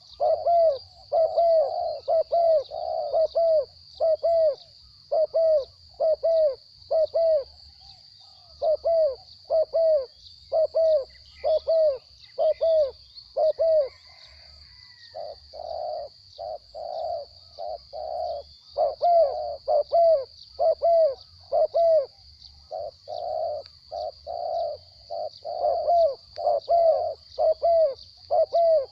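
Spotted doves cooing in fast runs of short coos, with a brief pause about halfway through, over a steady high insect drone.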